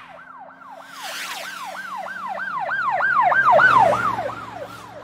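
Siren in a fast yelp pattern, its pitch sweeping up and down about three times a second, typical of a police siren. It grows louder to a peak about three and a half seconds in, then fades.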